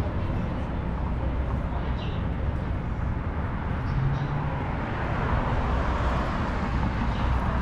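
Steady outdoor street noise with a low rumble, swelling a little past the middle as traffic goes by.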